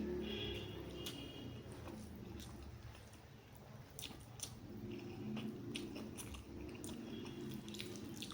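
Close-miked mouth sounds of someone chewing a big mouthful of rice and curry, with many short wet clicks and smacks.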